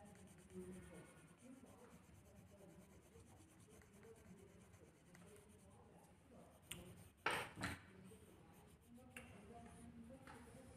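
Faint murmur of voices in a small room, near silence. About seven seconds in comes a click, then two short scratchy rubbing noises close together, the loudest sounds here.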